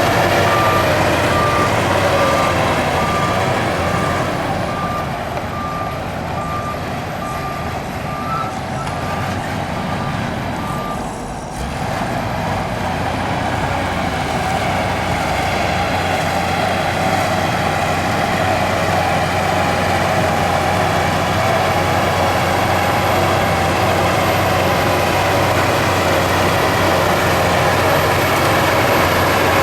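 Heavy diesel earthmoving machinery runs steadily at a construction site. For the first eleven seconds or so a reversing alarm beeps evenly over it, then stops while the engines keep running.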